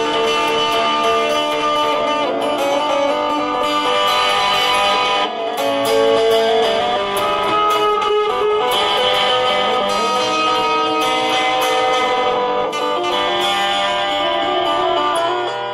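Electric guitar playing a melodic line with long held, ringing notes.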